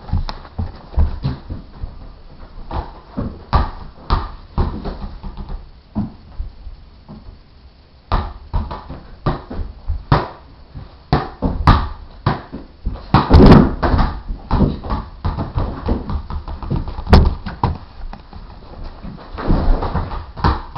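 Soccer ball being kicked, juggled and bounced on a hardwood floor: irregular thuds, sometimes in quick runs, with a short lull about a third of the way in and the loudest burst a little past the middle.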